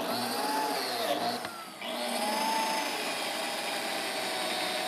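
Biscuit joiner (plate joiner) running as it cuts biscuit slots in the cabinet parts: a steady motor whine that rises and falls in pitch, with a brief drop a little under two seconds in before it runs on.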